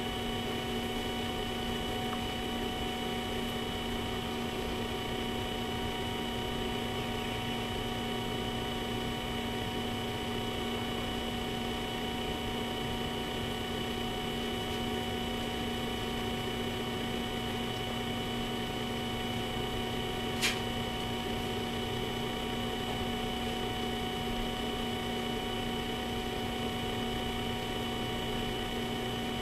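Steady electrical hum made of several fixed tones over a faint hiss, with one sharp click about twenty seconds in.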